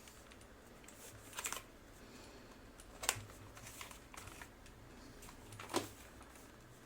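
A few separate keystrokes on a Cherry G80-3000 mechanical keyboard fitted with lubed, filmed Cherry MX Black switches: short clacks spaced a second or so apart, the sharpest about three seconds in and another strong one near the end.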